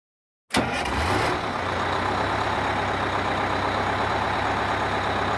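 A vehicle engine running steadily: a low rumble with hiss that starts abruptly about half a second in.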